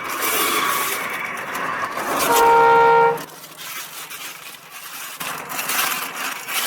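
A vehicle horn honks once, a held blare of just under a second a little over two seconds in, over steady road noise.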